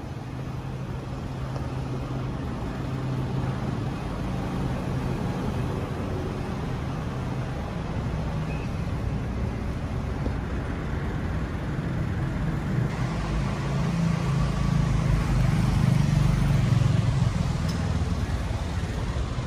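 Car engine running as a car drives slowly along the lane, over a steady low hum; it grows louder toward the end as the car comes close.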